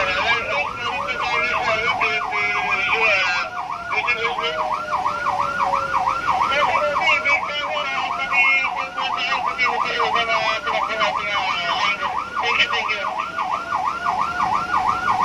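Fire truck sirens heard from inside a following car: a fast yelp sweeping up and down about three to four times a second, with a slower wail rising and falling beneath it.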